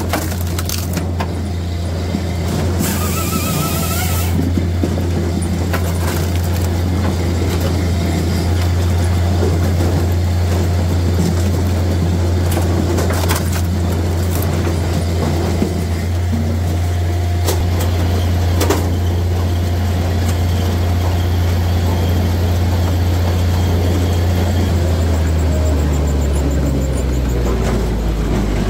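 Japa 405 firewood processor running steadily, with split firewood knocking against the machine now and then; near the end the engine note drops in pitch as the machine winds down.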